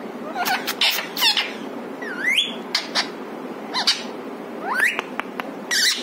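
Male Indian ringneck parakeet giving a string of short, sharp chirps and squawks, with one whistle about two seconds in that dips and then rises, over a steady low background noise.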